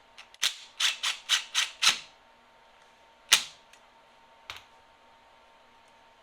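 Cordless impact driver running a bolt down in six quick bursts over about a second and a half, then one louder burst a little over three seconds in and a short one a second later, snugging the bolt tight.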